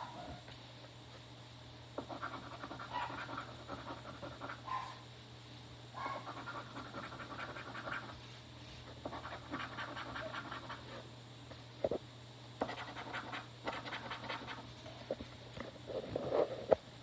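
A scratch-off lottery ticket being scratched in several spells of quick back-and-forth strokes with short pauses between them, with a few sharp taps near the end.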